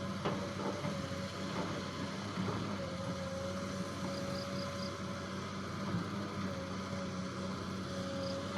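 XCMG excavator's diesel engine running steadily, with a steady whine over it and a few faint knocks. Four short high beeps come about halfway through.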